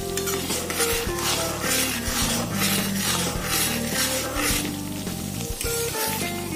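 Butter sizzling in a pan as it clarifies into ghee. A metal spatula stirs and scrapes it in strokes about twice a second, stopping about two-thirds of the way in. Background music plays throughout.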